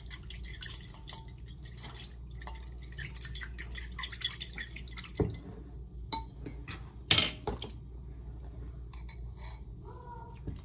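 Utensil clinking and tapping against a dish of freshly mixed lemon vinaigrette, with a few louder knocks about five to seven seconds in.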